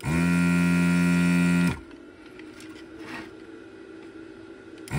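A small electric motor buzzing in two bursts: one about 1.7 s long that quickly spins up, holds a steady pitch and winds down, then a short burst near the end.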